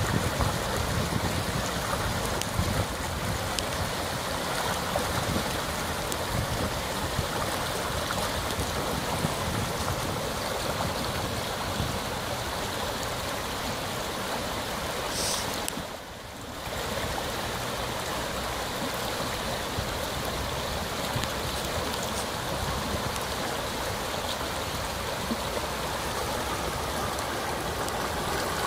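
Muddy river in spate rushing steadily over stones and brush, the sound of floodwater after heavy rain. The sound briefly drops away about sixteen seconds in, then resumes.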